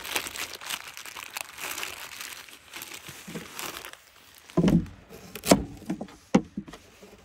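A plastic bag crinkling as carrots are pulled out of it, then a knife chopping carrots on a plastic cutting board: several sharp knocks in the last few seconds.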